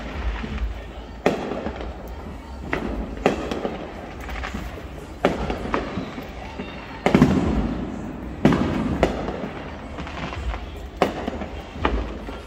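Fireworks going off: irregular sharp bangs with echoing tails, a dozen or so in all, the loudest two about seven and eight and a half seconds in.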